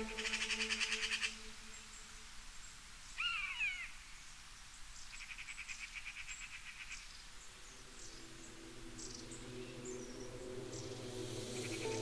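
Nature ambience of animal calls: bursts of a rapid pulsing trill about a second long, at the start, midway and near the end, and a single warbling chirp about three seconds in. Soft music with steady low tones comes in during the second half.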